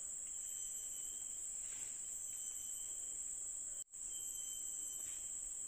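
Steady, high-pitched chorus of forest insects, with a break of a split second about four seconds in.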